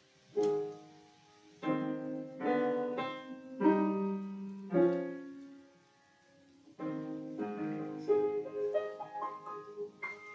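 Grand piano played solo: a slow series of struck, sustained chords, a pause of about a second, then more chords with a run of single notes climbing higher near the end.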